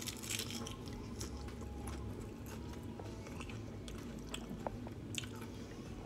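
A person biting into crisp food and chewing it, mouth close to the microphone: a burst of sharp crunches right at the start and another about five seconds in, with scattered crackles of chewing in between.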